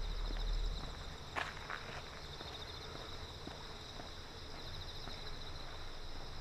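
Insects chirping in a steady, pulsing chorus, with a few footsteps on pavement; a low rumble fades away in the first second.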